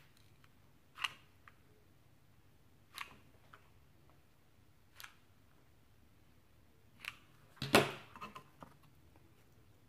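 Handling noise from hot-gluing a fabric-covered sticky board with a mini glue gun: a few short clicks and taps about two seconds apart, then a louder cluster of rustles and knocks near the end as the piece is moved and pressed into place.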